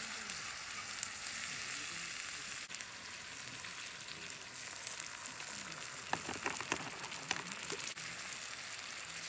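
Vegetables sizzling steadily in a cast-iron skillet over a charcoal grill while being stirred with wooden chopsticks; a stream of liquid is poured into the pan partway through. Around two-thirds of the way in come a run of quick clicks as the chopsticks hit the pan.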